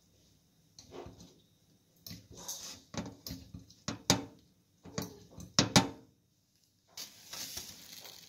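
Irregular clinks and knocks of a ceramic bowl of sliced guava being handled on a stainless-steel sink counter, the sharpest knock a little before six seconds in, with a brushing rustle near the end.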